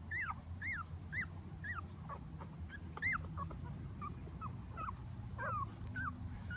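Two-week-old miniature schnauzer puppies whimpering: a run of short, high squeaks that each fall in pitch, about two a second, fainter and more scattered in the second half. The puppies are uneasy at being outside for the first time.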